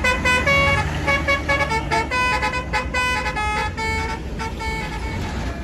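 Bus telolet horn, a multi-tone musical air horn, playing a quick tune of short notes that step up and down in pitch, over a vehicle engine's low rumble.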